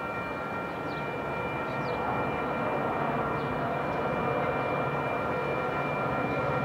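Metra F40PH-3 diesel-electric locomotive approaching with its train, a steady engine drone that grows gradually louder. A few faint high chirps sound in the first half.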